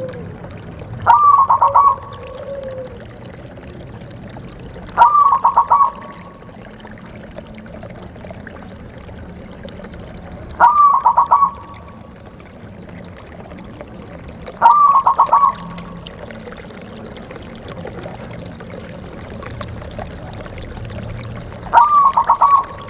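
Zebra dove (perkutut) cooing: five separate song phrases spaced a few seconds apart, each a short opening note that runs into a quick series of rapid pulses, over a steady background hiss.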